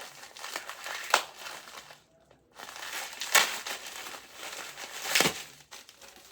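Shipping packaging being torn open and crumpled by hand: rustling and crinkling with three sharper surges, one about a second in, one past three seconds and one past five seconds, and a short pause around two seconds.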